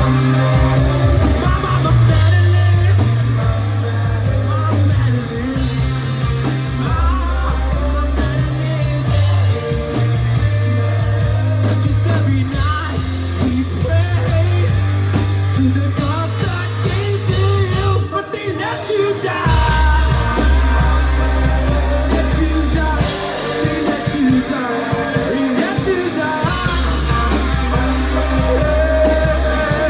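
Loud live rock band playing a passage between sung lines: guitars, bass and drums, with a short break about eighteen seconds in before the band comes back in.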